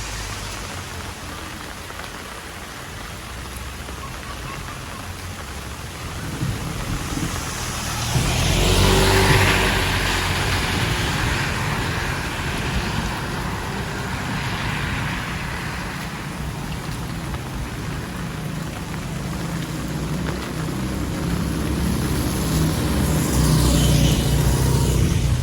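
Heavy rain falling as a steady hiss. Road vehicles swell past twice, about a third of the way in and again near the end, the second falling in pitch as it goes by.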